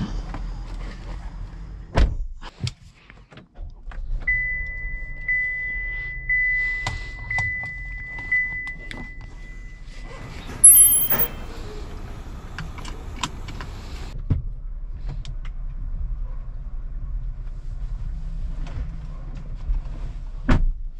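A vehicle's interior with a low steady rumble, scattered clicks and thunks of doors and fittings, and a steady high electronic tone held for about six seconds. Near the middle comes a sharp, loud thunk, the loudest sound, with another near the end.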